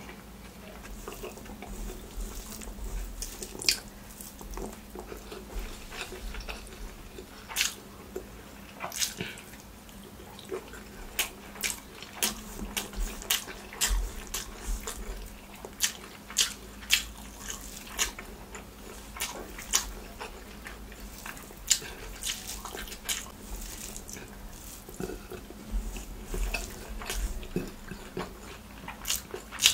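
Close-miked eating by hand: irregular wet smacks and clicks of chewing, with the soft squish of fingers mixing beetroot rice and curry.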